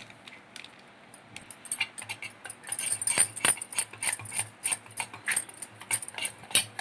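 A spoon beating chocolate cake batter in a stainless steel bowl: quick strokes that clink and scrape against the metal, starting about two seconds in.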